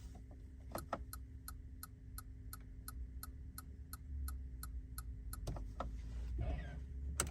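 Turn-signal ticking from a Mitsubishi eK X EV: an even tick-tock of about three ticks a second that stops about five and a half seconds in, over a faint steady hum. A couple of single clicks follow near the end.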